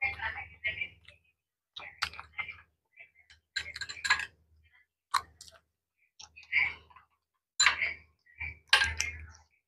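Close-up chewing and mouth sounds from people eating: irregular wet clicks and smacks that come in short bursts with brief pauses between them.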